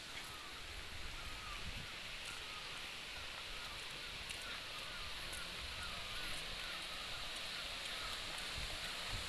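Steady rushing hiss of water from a rocky stream and the waterfall ahead, with small chirping calls repeating over it every half second or so.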